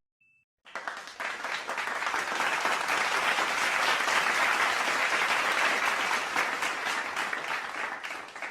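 Crowd applause, a dense patter of many hands clapping. It starts suddenly under a second in, swells, then tapers off near the end.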